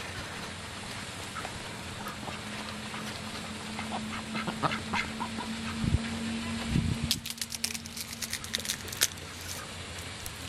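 White domestic ducks quacking, a few short calls in the middle, followed by a run of sharp crackling clicks about seven seconds in.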